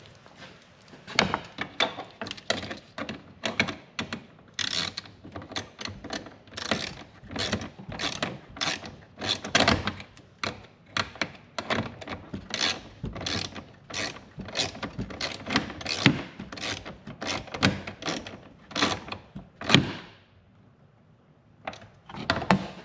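Hand ratchet clicking in short strokes, about twice a second, as it runs an 8 mm bolt back in. The clicking stops near the end, then a few more strokes follow.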